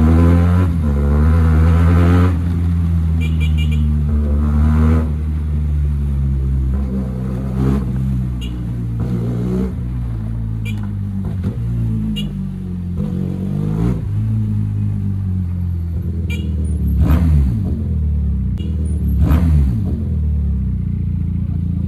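Motorcycle engine running through a loud raw, unsilenced exhaust while riding at low speed, the revs rising and falling with throttle and gear changes, with a few short sharp cracks now and then.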